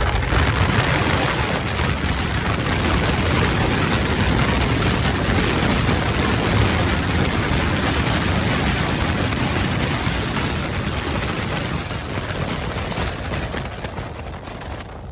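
Outboard-powered speedboat running at high speed on open water, its engine noise blended with heavy rushing wind and spray, easing off near the end.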